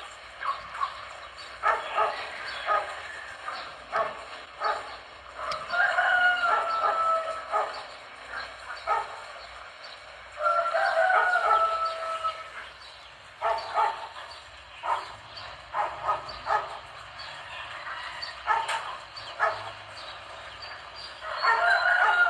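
A dog barking again and again, and a rooster crowing three times, each crow one long call that falls slightly at the end: about six seconds in, about ten seconds in, and near the end.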